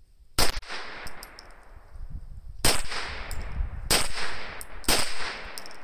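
Ruger PC Carbine, unsuppressed 9mm, fired four times: one shot, then after a pause of about two seconds, three more about a second apart, each shot trailing off in echo.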